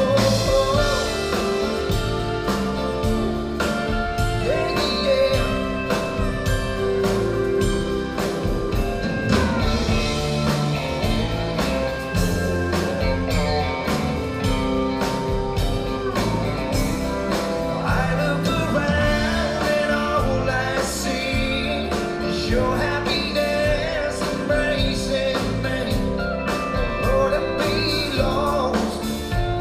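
Live country band playing: electric and acoustic guitars, drum kit and keyboard over a steady beat.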